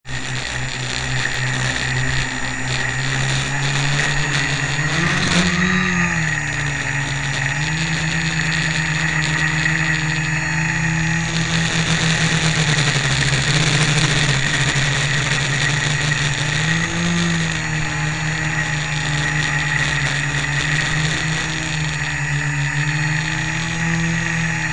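Quadcopter's electric motors and propellers humming steadily, heard from a camera on the craft itself; the pitch swells briefly with throttle about five seconds in and again near seventeen seconds.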